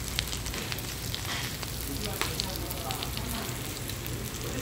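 Thin-sliced pork belly sizzling on a hot griddle: a steady frying hiss with scattered sharp crackles and pops.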